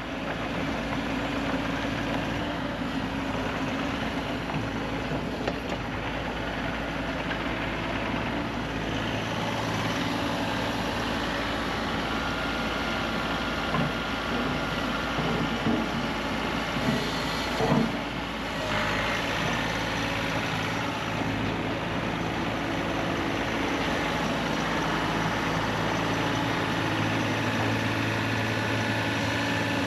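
Heavy-equipment diesel engine running steadily, with a few short knocks and clatters a little past halfway.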